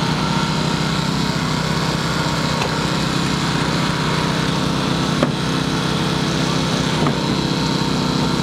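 Small petrol engine of a hydraulic rescue-tool power unit running steadily while a spreader is worked on a car door, with two sharp cracks about five and seven seconds in.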